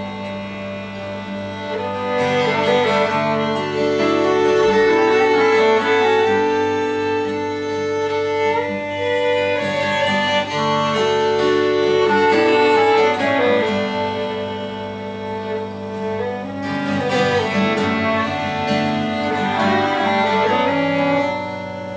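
Live acoustic trio of violin, clarinet and acoustic guitar playing an instrumental piece, the bowed violin and clarinet carrying long held melody notes over the strummed guitar.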